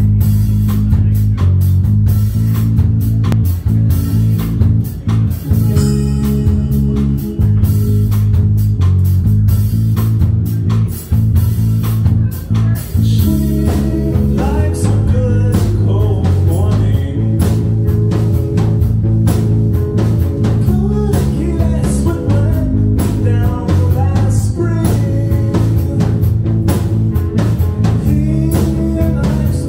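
Live band playing through a PA, with electric guitars, bass and drum kit; a vocalist starts singing about halfway through.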